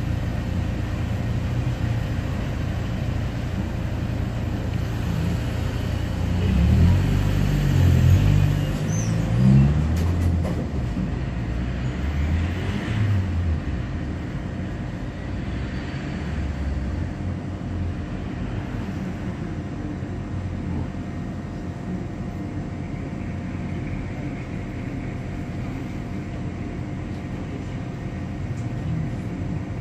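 Steady low rumble inside a Tatra T4D tram, with road traffic passing close outside. A louder low engine drone that rises and falls in pitch swells about seven seconds in and fades by ten, with a shorter swell around thirteen seconds.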